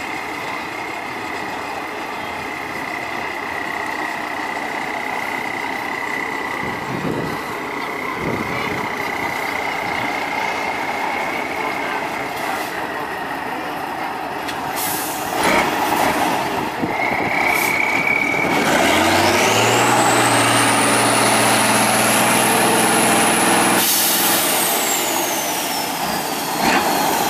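Tatra 815 6x6 trial truck's diesel engine working through deep mud. It runs steadily with a high whine, then revs up in the second half, when a thin whistle rises high and falls away again. A rush of hiss comes near the end.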